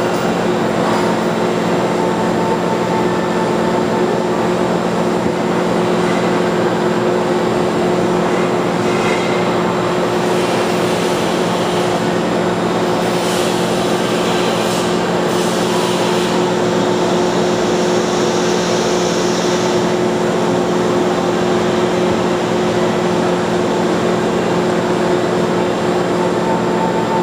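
Screw press running steadily, a constant mechanical hum with a steady drone from its drive as it squeezes liquid out of wet sawdust and pushes a pressed plug out of the discharge cone. Some brief hissing comes in around the middle.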